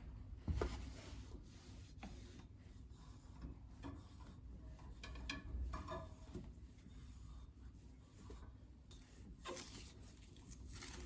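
Quiet household handling sounds: rubbing and scraping with scattered light knocks and clicks, and a thump about half a second in.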